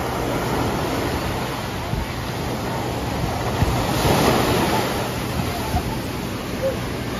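Caribbean surf breaking on a sandy beach, waves washing up the shore in a steady rush, with a louder wave crashing about four seconds in.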